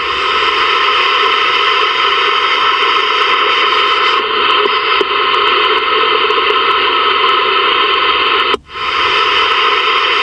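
Steady static hiss from a Ranger VR-9000 CB/export radio's receiver tuned to empty 27 MHz sideband channels, with no voice coming through. About eight and a half seconds in the hiss cuts out for a split second and comes back as the radio steps to the next frequency.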